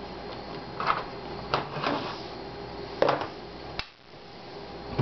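A few plastic knocks and clicks as a laptop battery is unlatched and slid out, and the laptop is handled and set down on a wooden table.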